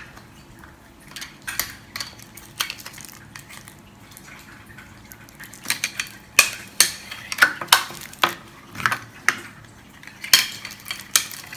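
Hard plastic candy packaging clicking and crackling as hands pry it apart. The clicks are scattered at first and come thicker and louder from about halfway through.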